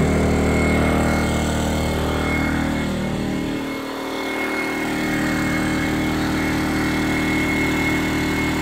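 Small portable generator engine running steadily, with an even low hum and a thin steady high whine over it. It dips a little around four seconds in and comes back up.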